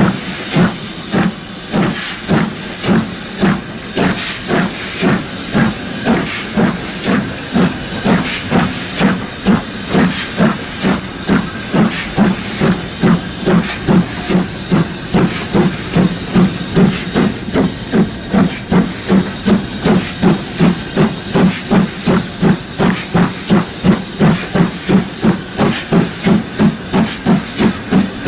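Steam locomotive exhaust beats: a steady chuffing at about two beats a second as the engine works along at low speed.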